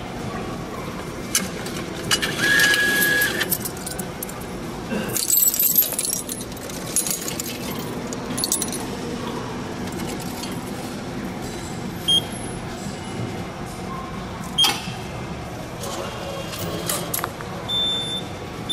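Coins and bills being fed into a railway ticket vending machine: coins clinking and rattling through the slot, with a few short electronic beeps from the machine as the fare is paid and the ticket comes out.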